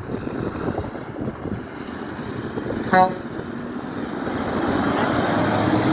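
Road traffic passing, with one short horn toot about three seconds in. The rumble of an approaching vehicle grows louder toward the end.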